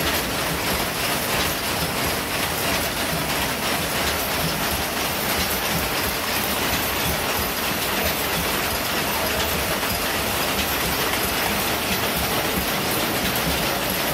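Machine looms weaving korai grass sleeping mats, running with a steady, dense mechanical clatter.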